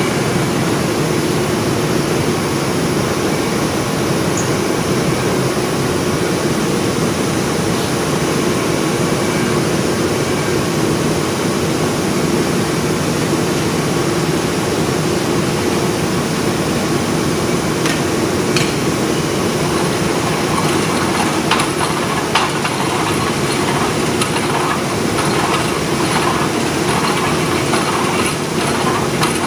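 Steady drone of factory machinery running, with a low hum that holds one pitch and a scattering of light clicks and knocks in the second half.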